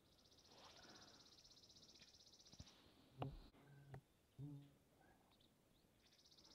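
A songbird's long, dry, high trill, given twice, while wild turkeys fight. About three seconds in there is a knock, then two short, low calls from the turkeys, a second or so apart.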